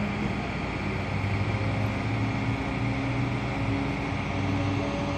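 Steady low hum of a running vehicle engine over outdoor street noise. The hum swells and eases slightly, with no sharp events.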